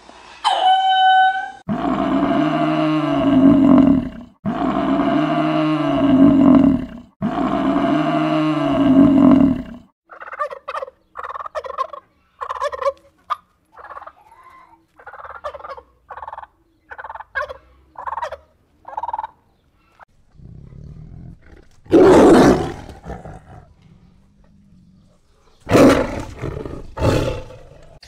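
A run of animal calls. Three long, loud, rising-and-falling calls come first. Then a turkey gives a string of short calls about twice a second. Near the end come a few harsh, noisy bursts.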